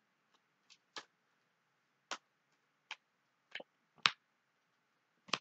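Tarot cards being handled on a table: about seven short, sharp snaps and taps at irregular intervals, the loudest about four seconds in.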